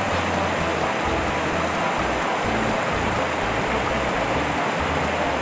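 River water rushing over rocks and a small weir: a steady, even rushing.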